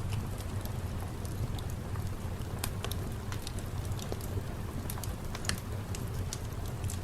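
Steady rain with a low rumbling undertone, dotted with irregular sharp crackles and pops.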